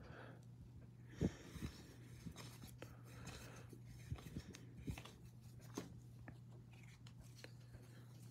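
Faint clicks and rustles of cardstock trading cards being handled and slid through the hands, a few sharper ticks among them, the sharpest about a second in, over a faint steady hum.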